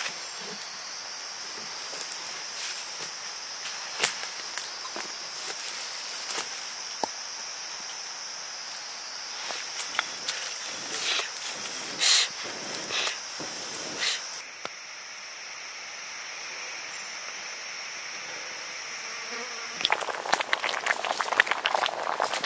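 Steady high-pitched insect chorus, with scattered light clicks and knocks. A dense spell of rustling and scraping starts near the end.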